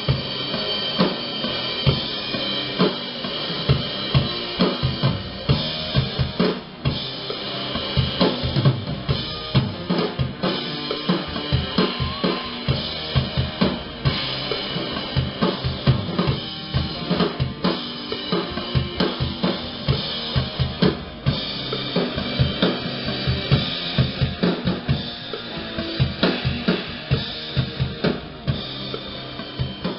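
A drum kit played in a steady, regular beat for a doom metal recording: bass drum and snare hits about twice a second over a constant wash of cymbals.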